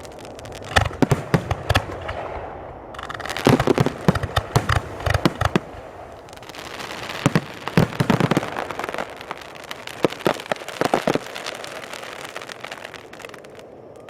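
Fireworks going off in four quick groups of sharp bangs with crackling between them, fading out near the end.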